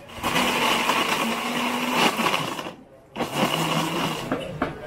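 A small electric motor running at high speed with a steady whine. It cuts out briefly about three seconds in, then starts again at a lower pitch, with a few sharp clicks near the end.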